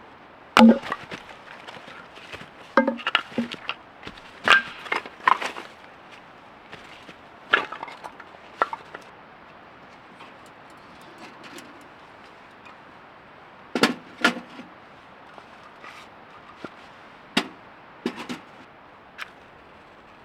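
Firewood being split: about a dozen sharp chopping strikes into logs at an irregular pace, some in quick pairs, with the wood cracking apart; the loudest strike comes about half a second in.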